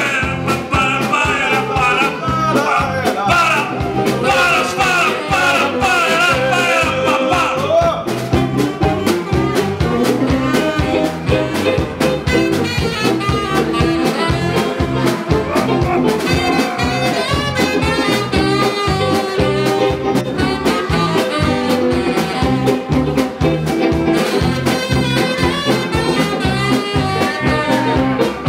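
Live band playing an instrumental break in a swing style: a saxophone melody over a steady beat and bass, the melody wavering for the first several seconds before the fuller band texture takes over.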